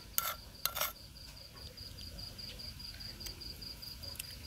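A metal spoon scraping and knocking against a mortar twice within the first second. Then a high insect chirp pulses quickly and steadily in the background.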